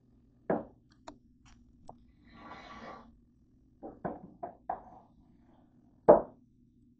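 Metal sheet pan and toaster-oven door knocking and clattering as the pan is slid into a countertop toaster oven: a run of sharp knocks about four seconds in, then the loudest clunk about six seconds in as the pan goes onto the rack. A faint steady hum runs underneath.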